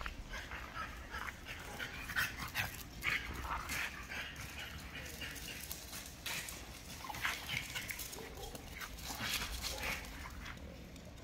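Two dogs, a golden retriever and a French bulldog, playing together, making many short, irregular dog sounds.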